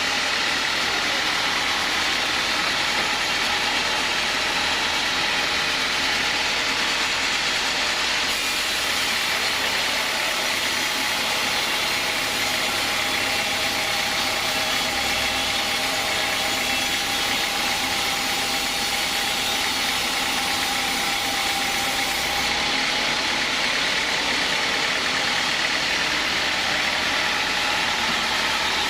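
Home-built sawmill machine running steadily: an even mechanical drone with a held whine over it.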